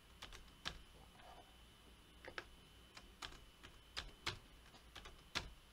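Computer keyboard keys being pressed: about eight faint keystrokes at irregular spacing, as a password is typed in.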